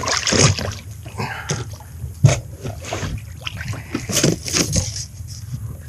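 Water splashing and dripping off a landing net as it is lifted out of the sea onto a plastic sit-on-top kayak, with irregular knocks and rattles of the net and gear against the hull, the sharpest about two seconds in.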